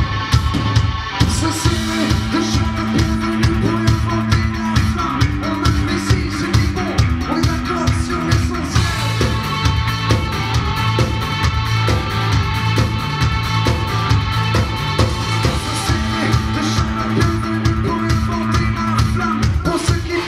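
A rock band playing live at full volume: distorted electric guitars, bass and a drum kit with a steady beat and sustained low bass notes.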